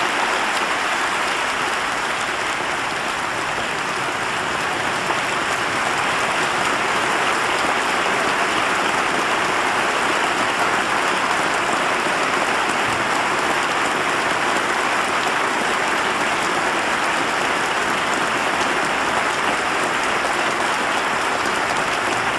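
A large audience applauding: dense, even clapping that holds steady throughout.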